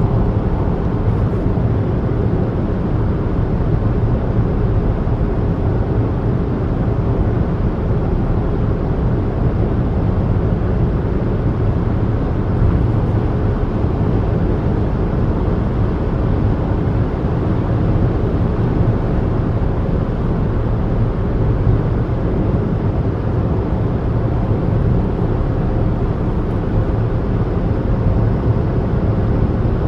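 Car driving along a road: a steady low rumble of engine and tyre noise, without changes.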